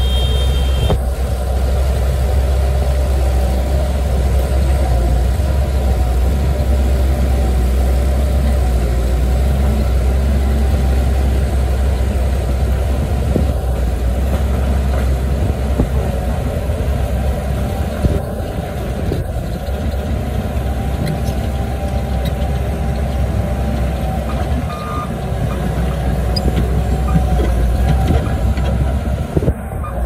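Bulldozer's diesel engine running steadily under load, with a few knocks from the machine about halfway through.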